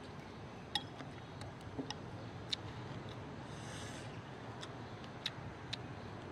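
Eating with plastic chopsticks from a glass bowl: a handful of scattered sharp clicks over a steady low background rumble.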